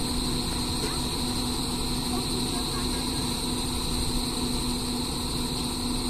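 Doosan crawler excavator's diesel engine running steadily, a constant hum with a held tone.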